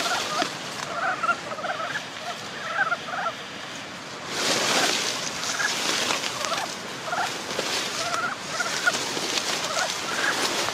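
A chorus of Ezo brown frogs (Rana pirica) calling at their breeding pond: short, quick croaks in bouts, several frogs overlapping. Two rushing swells of noise come about four and eight and a half seconds in.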